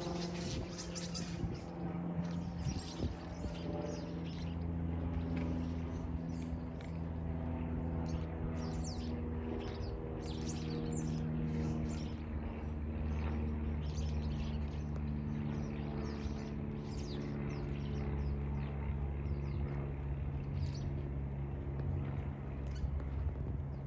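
Small birds chirping and tweeting, many short calls throughout, over a steady low hum.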